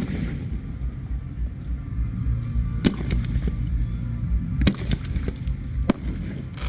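Fireworks going off: a few sharp reports about three seconds in, another pair near five seconds and one about six seconds in, over a steady low rumble.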